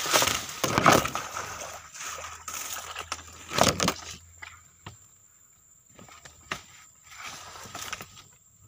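Loud rustling, scraping and knocks of a person fleeing through dry leaves and undergrowth with the camera being knocked about. It is loudest in the first four seconds, then dies down to scattered light crackles of footsteps.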